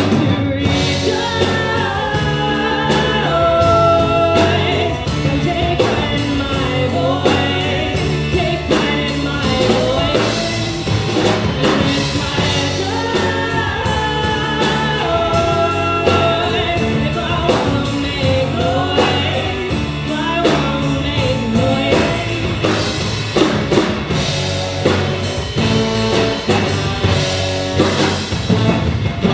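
A rock band playing live with a lead singer, drums keeping a steady beat under the vocal line.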